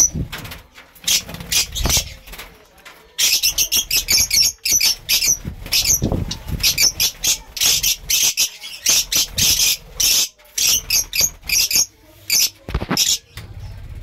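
A flock of lovebirds calling: rapid, shrill chirps and squeaks, thick from about three seconds in until shortly before the end. A few dull low thuds are scattered among them.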